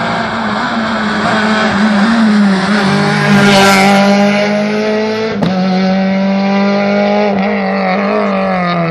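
Rally car, a Renault Clio, running hard at high revs as it approaches and passes close by, the engine note holding high with small rises and dips, loudest about three and a half seconds in. There is a single sharp crack about five and a half seconds in, then the engine carries on as the car pulls away.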